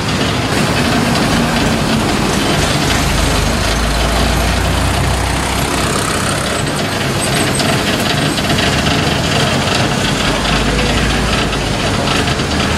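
Steady mechanical rumble with a constant hiss over it, like an engine running; the low rumble swells about three seconds in and again near the ten-second mark.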